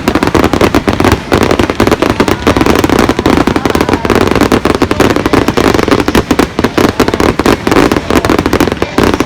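Aerial fireworks display bursting in rapid, continuous succession: a dense, loud barrage of bangs and crackles, many per second, without a break.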